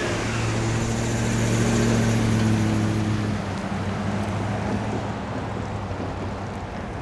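Pickup truck pulling away: a steady engine hum over tyre noise, loudest about two seconds in, then fading.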